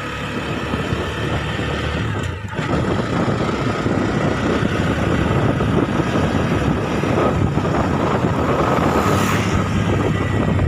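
TVS Apache motorcycle riding along at speed, its engine running under heavy wind rush on the microphone. There is a brief dip about two seconds in.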